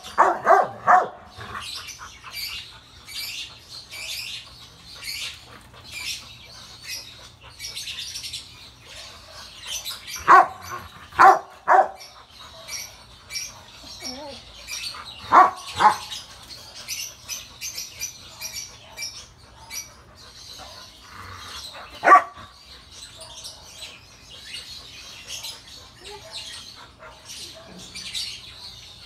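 Rottweilers barking at each other in play, in short bursts: a few barks at the start, a cluster of three about a third of the way in, two more just past halfway and a single one about three quarters through. Birds chirp steadily in the background.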